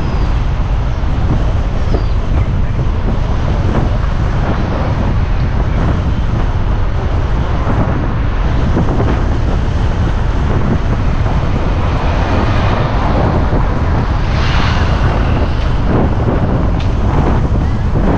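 Steady rumble of wind buffeting the microphone over the running noise of a moving vehicle.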